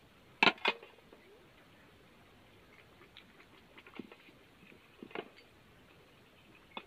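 Aluminium pots and a cup clinking and knocking as they are handled: two sharp clinks about half a second in, then a few fainter knocks spread through the rest.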